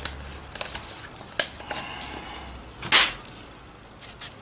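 Handling noises from small parts during motorcycle brake work: a few light clicks, then a brief louder knock about three seconds in.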